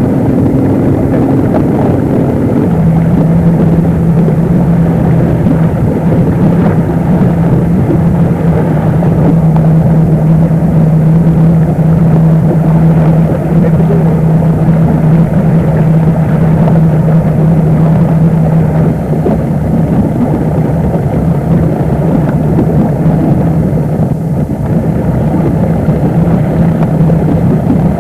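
Motorboat engine running steadily, its pitch dropping as it throttles back about three seconds in, then holding an even drone.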